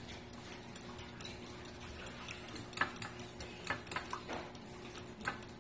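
Fork beating egg in a ceramic bowl: the tines tap and scrape against the bowl in light, irregular clicks, with a few louder taps.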